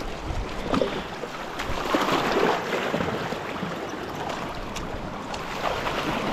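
Small waves sloshing over shoreline rocks, with splashing as hands rinse in the shallow seawater; a louder spell of sloshing about two seconds in.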